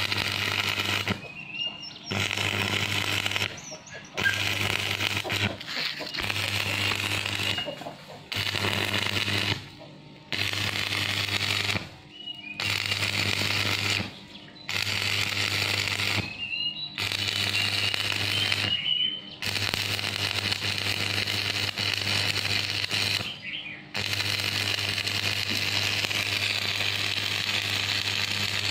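Stick (arc) welding on steel bars: the arc crackles and hisses over a steady electrical buzz, breaking off and restriking about ten times, each gap about half a second.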